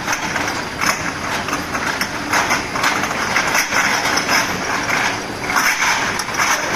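Glass bottle washing machine running, with steady mechanical noise and frequent irregular clattering and knocking.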